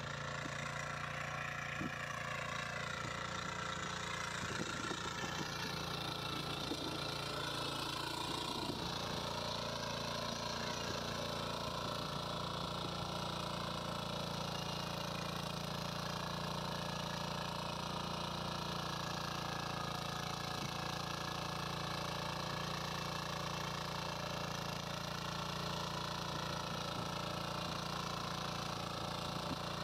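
Shrachi walk-behind power weeder's single-cylinder engine running steadily under load while its rotary tines till the soil between crop rows.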